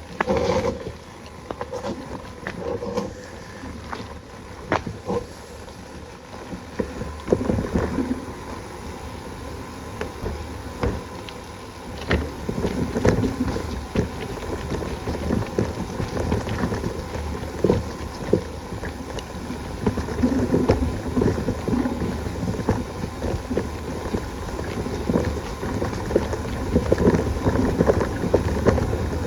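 Bicycle ridden down a rough trail: wind buffeting the microphone, with tyres and frame rattling and knocking over stones, getting louder about halfway through.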